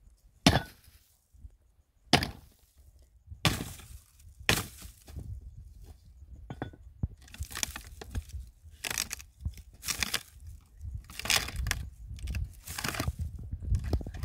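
Dry wood cracking and snapping as firewood is broken up: a few sharp, spaced cracks, then a quicker run of cracks from about seven seconds in.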